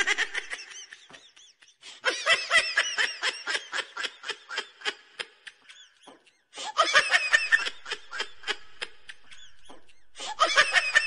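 Bouts of laughter in quick rapid pulses, three or four runs broken by short pauses.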